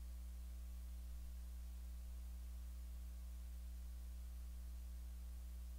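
Steady low electrical mains hum with a faint hiss, unchanging throughout.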